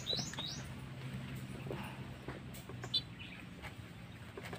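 A bird chirping a fast series of rising high notes, about four a second, that stops about half a second in; after that only a few faint chirps and small clicks over a low steady hum.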